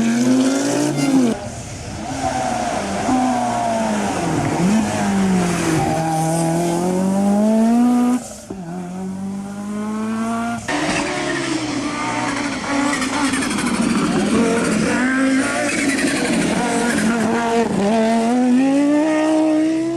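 Rally car engines at full throttle, the pitch climbing and dropping again and again through gear changes and lifts, with abrupt jumps between different passes.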